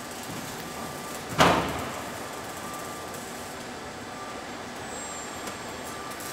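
Robotic car-body assembly line running with a steady machinery hum. About a second and a half in there is one loud, sudden burst of noise that fades within about half a second.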